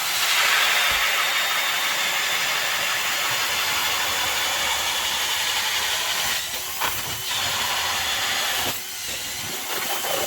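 A loud, steady hiss, dipping briefly about six and a half and nine seconds in.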